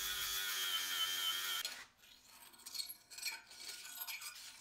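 Angle grinder with a flap disc running steadily with a high whine as it grinds weld off a steel plate, stopping about a second and a half in. It is followed by a series of quieter hand-file strokes rasping on the steel.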